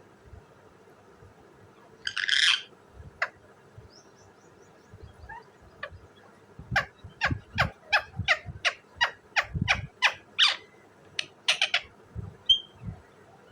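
Rose-ringed (ringneck) parakeet calling: one harsh screech about two seconds in, then from about seven seconds a rapid run of short, sharp calls, about three a second.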